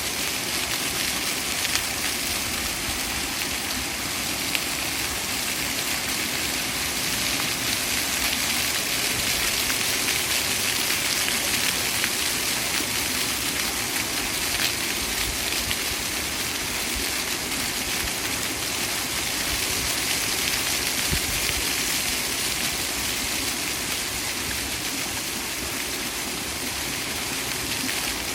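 Water fountain splashing steadily: a constant hiss of falling water.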